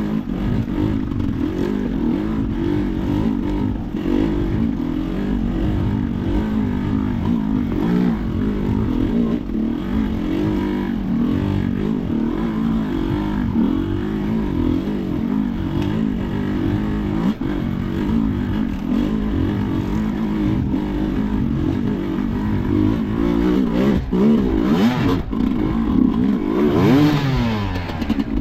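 Sherco enduro motorcycle engine being ridden hard, its revs rising and falling constantly. It gets louder near the end, and the revs drop in one clear fall.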